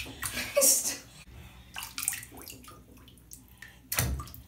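Water splashing and sloshing in a filled bathtub, small splashes and drips, with a louder splash about four seconds in.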